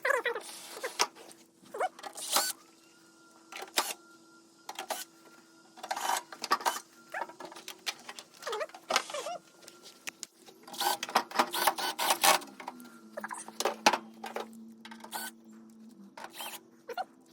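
Irregular clicks, knocks and scrapes of parts and screws being handled and fitted as the tempering machine's housing is closed up, with a faint steady hum underneath.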